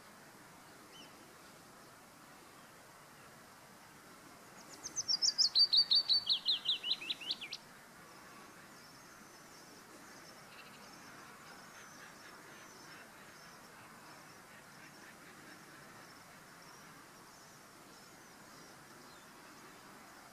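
Willow warbler singing one song phrase about five seconds in: a run of quick notes falling steadily in pitch over about three seconds. Faint high chirping follows later.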